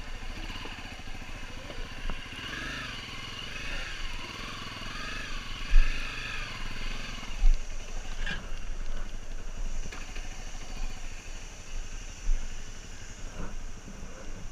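Dirt-bike engine running at low speed over a rough track, its note rising and falling repeatedly through the first half, with wind rumble on the helmet microphone and two heavy thumps in the middle.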